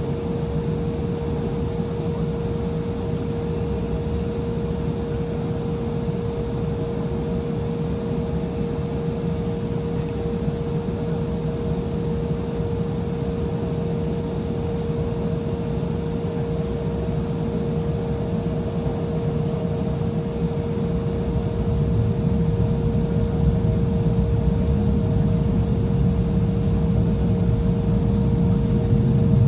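Cabin noise of an Embraer 175 jet taxiing, its twin turbofan engines near idle: a steady whine over a low rumble, which grows louder over the last several seconds.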